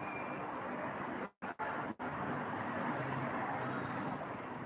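Steady background street traffic noise, an even hum with no clear single event. The sound drops out briefly three times between about one and two seconds in.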